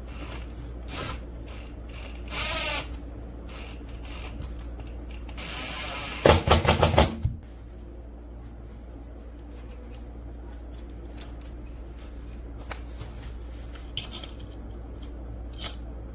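Cordless drill run in short bursts: a brief run about two and a half seconds in, then a longer run near six seconds that breaks into about six rapid, loud pulses before stopping. Scattered clicks and handling knocks, over a steady low hum.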